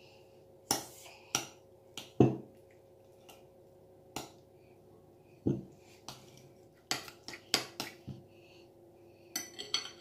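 Metal spoon clinking and knocking against a glass mixing bowl while stirring a thick cream-cheese mixture, in irregular strikes, the loudest a heavier knock about two seconds in.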